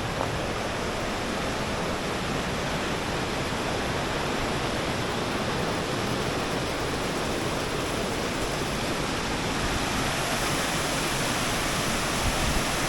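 Waterfall crashing into a pool: a steady, loud rush of falling water.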